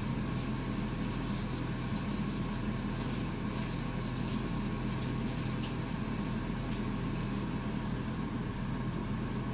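A steady low mechanical hum, with faint light clicks over it.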